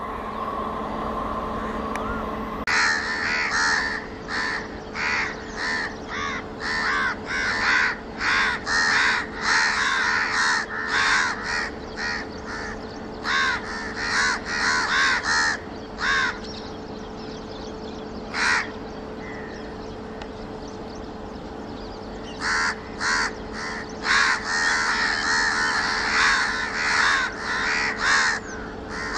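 Crows cawing over and over in quick harsh calls, in two long runs with a lull of a few seconds between them, over a faint steady hum.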